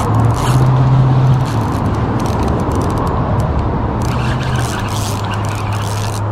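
Spinning reel being cranked to reel in a hooked steelhead, a steady whir with scratchy clicking from the turning reel, over running river water.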